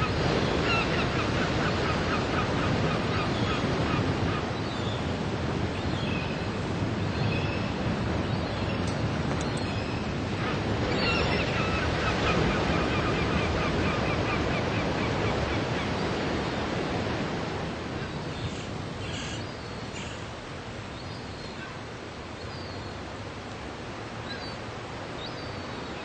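Ocean surf breaking on a sandy beach: a steady rush of foaming waves that eases off somewhat after about two-thirds of the way through. Over the surf, birds call in runs of quick, short, repeated notes, once at the start and again around the middle.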